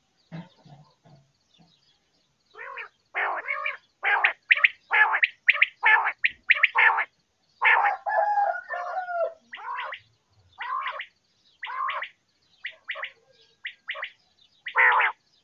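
Quail calling: after a faint start, a fast run of short, rough calls repeated in quick groups, with one longer wavering call about two-thirds of the way through.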